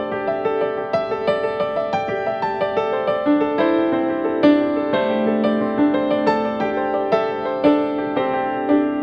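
Background music: gentle solo piano playing a run of struck notes and chords at a steady level.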